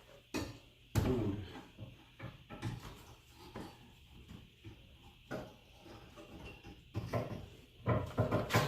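Irregular knocks and clunks of a new front strut assembly being worked into place in the steering knuckle, the loudest about a second in and several more near the end.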